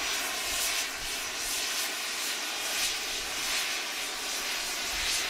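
Steam locomotive safety valve blowing off: a steady hiss of escaping steam from Virginia & Truckee No. 22 Inyo, a Baldwin 4-4-0, its boiler at full pressure.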